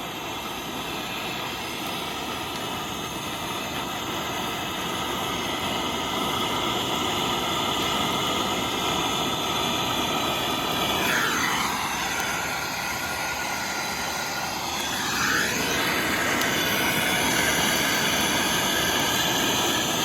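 Refrigeration brazing gas torch blasting its flame into bonfire wood: a steady jet-like roaring hiss that grows somewhat louder, with its tone shifting briefly about halfway through.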